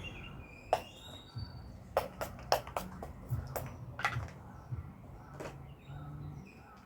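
Several irregular sharp clicks and taps over a faint low hum.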